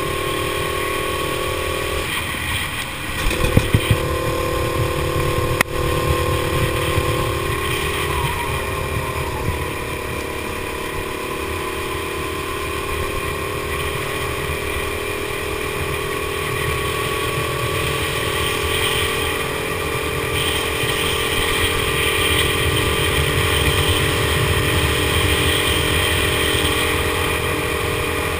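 Go-kart engine running at speed on track, heard from on board the kart. Its note dips about two seconds in, then climbs slowly for the rest of the stretch. A few knocks sound around three to four seconds in, and one sharp click near six seconds.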